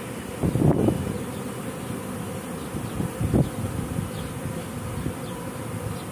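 Swarming honeybees buzzing steadily around the hive entrance, swelling louder twice, about half a second in and again just after three seconds.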